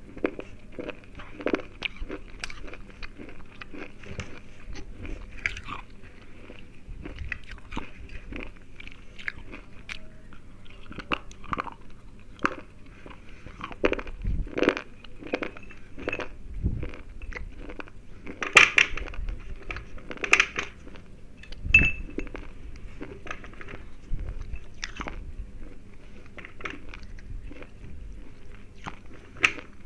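Close-up biting and chewing of thick, hard slate pencils: a steady run of sharp, brittle crunches, loudest in a cluster of bites about two-thirds of the way through.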